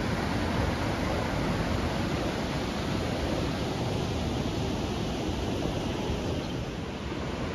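Steady rushing of a flood-swollen river running high and muddy over rapids.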